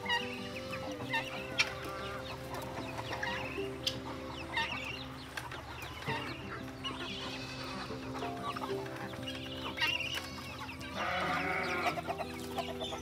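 Chickens clucking in short scattered calls over soft background music with held notes, with a sharp click about one and a half seconds in and a louder, harsher call near the end.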